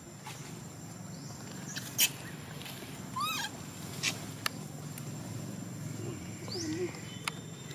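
Macaque giving two short squeaky calls a few seconds apart, each bending up and down in pitch, with a few sharp clicks in between over a low steady hum.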